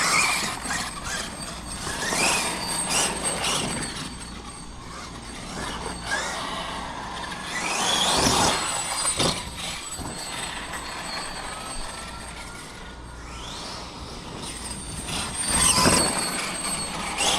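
Electric drive of a Losi 5ive TE 3.0 1/5-scale RC truck running, its motor and gear whine rising in pitch in several bursts of acceleration, loudest about halfway through and again near the end, over rough driving noise.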